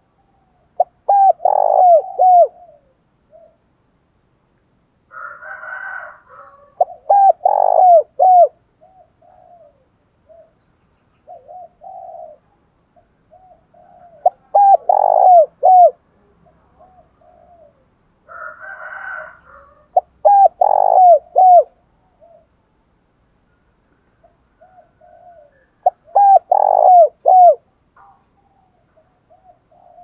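Spotted dove cooing its territorial song: five loud phrases of three or four coos, about six seconds apart, with softer short coos in between.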